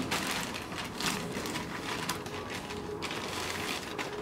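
Plastic poly mailer bag rustling and crinkling as it is opened by hand and a box is pulled out, in quick, irregular crackles.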